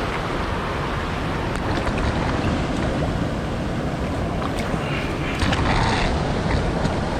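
Steady rush of creek water with wind buffeting the microphone, and a brief louder patch of noise about five to six seconds in.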